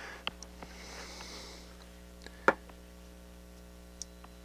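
A brief soft hiss of contact cleaner applied to a potentiometer's wiper, followed by small clicks of handling and one sharp click about two and a half seconds in, over a faint steady mains hum.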